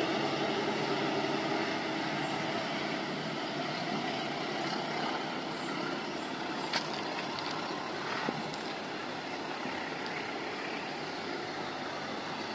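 Bogowonto passenger train rolling away on the rails, a steady rumble of carriage wheels that slowly fades as it draws off. Two short sharp clicks come about seven and eight seconds in.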